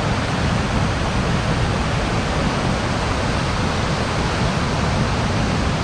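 Steady rushing of a waterfall cascade, an even, unbroken roar of falling water.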